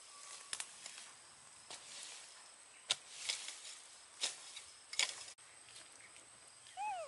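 Scattered crackles and snaps of dry leaves and twigs as baby monkeys scrabble and pick about on the ground, with one short squeak that rises and falls near the end.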